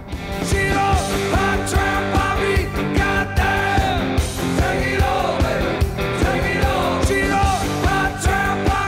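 Rock song with a singing voice over a steady beat, coming in loudly right at the start.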